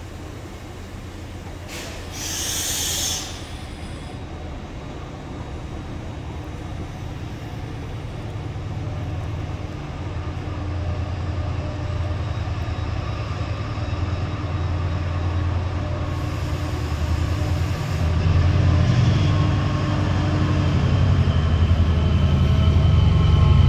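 TransPennine Express Class 68 diesel locomotive propelling its Mk5a coaches away from the platform: a steady engine drone with running noise from the coaches, growing louder as the locomotive at the rear draws near. A brief hiss about two seconds in.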